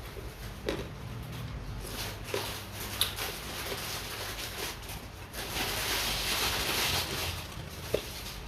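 Quiet eating sounds: light scattered clicks about a second apart, with a sharper one near the end, and a stretch of soft hiss about two thirds of the way in.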